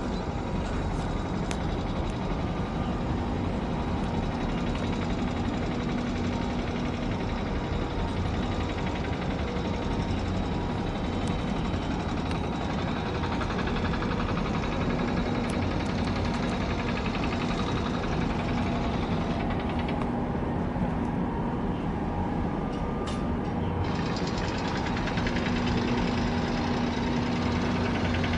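A large container ship's diesel engine running as the ship passes slowly: a steady low drone, with a hum that fades in and out.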